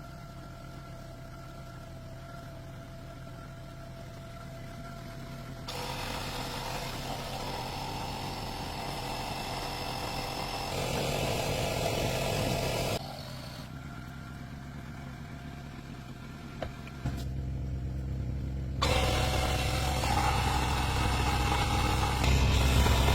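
A car engine running, heard in several cut-together stretches that change abruptly in loudness and tone, loudest near the end.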